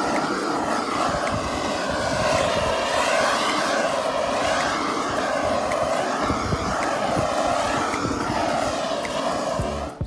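Handheld butane blow torch flame playing over the inside of the wooden hive box to char the timber: a steady hissing roar that wavers slightly as the torch is moved.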